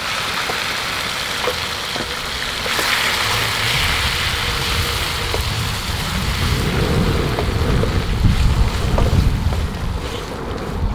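Pork al pastor sizzling in hot bacon fat on a discada over a fire, the sizzle swelling a few seconds in, with a few small clicks. From about halfway in, wind buffets the microphone with a low rumble.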